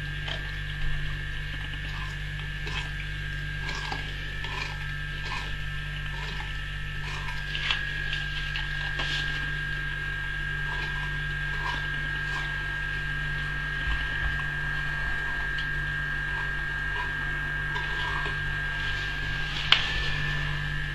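A dog's teeth clicking and scraping on the hard rind of a whole watermelon as it tries to bite into it, about one small click every 0.7 seconds. A steady electrical hum with a thin high whine sits underneath.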